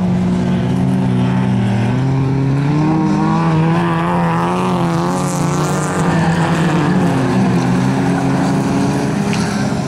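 Several folkrace cars' engines revving hard on a gravel track, their pitches wavering up and down as the throttle comes on and off. One engine climbs higher and louder about three to five seconds in.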